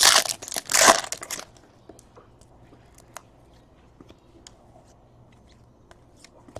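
Crinkling of a trading-card pack's wrapper for about the first second and a half, then faint scattered ticks of cards being handled.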